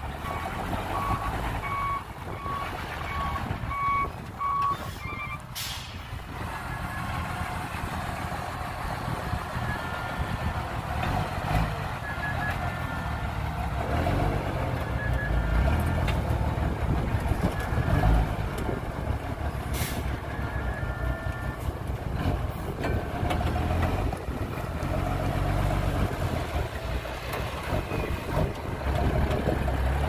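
Reversing alarm on heavy construction machinery beeping steadily, about two beeps a second, over the low running of diesel engines. It stops about five seconds in; later, a higher-pitched beeper sounds on and off. There is a short burst of hiss about six seconds in.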